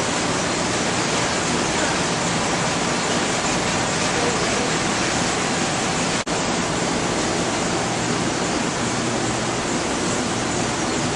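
Steady, even rushing noise of ventilation and equipment cooling fans. It drops out for an instant about six seconds in.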